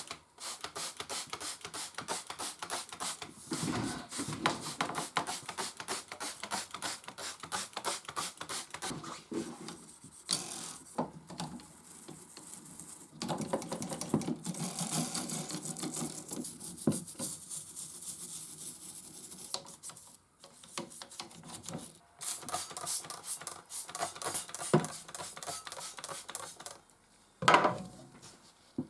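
Rapid, irregular clicking and scraping from hands working on the metal mechanism of a Consul 221 typewriter, in several runs broken by short pauses, with one louder knock near the end.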